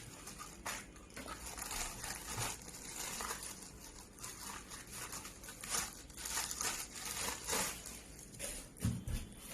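Plastic packaging crinkling and rustling in irregular spurts as a new spinning reel is unwrapped and handled, with a couple of light knocks near the end.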